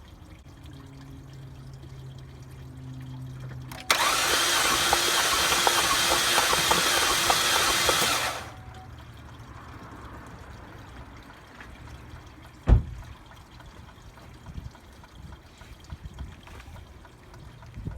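2014 Chevy Sonic engine cranked over by its starter for about four and a half seconds during a compression test on cylinder 2, starting and stopping abruptly; the engine has very low compression. A single sharp knock follows a few seconds later.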